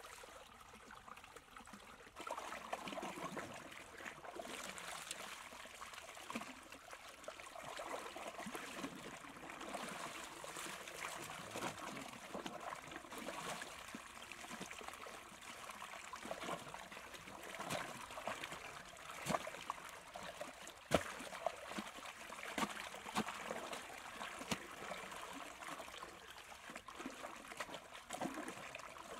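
Muddy water running and trickling down a narrow channel dug in wet earth, with splashing and a few sharp knocks in the second half from a shovel blade working the muddy channel bed.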